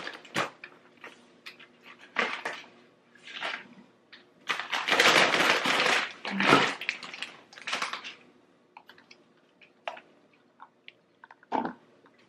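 Groceries being unpacked from a reusable shopping bag: irregular bursts of bag and packaging rustling, loudest around the middle, followed by a few light clicks and knocks of items being handled and set down near the end.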